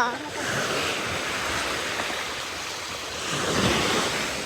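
Steady rushing noise of sea waves and wind, swelling a little about three and a half seconds in.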